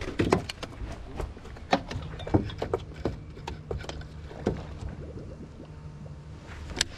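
Irregular knocks and clicks of handling on a bass boat over a low wash of water noise. A faint steady low hum comes in about two seconds in and stops shortly before the end.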